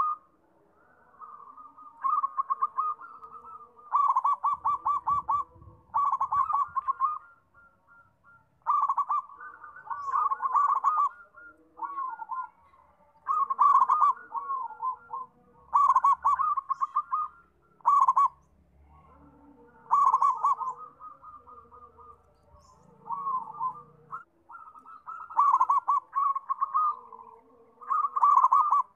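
Zebra dove (perkutut) singing: repeated phrases of rapid staccato cooing notes, a phrase every second or two with short pauses between.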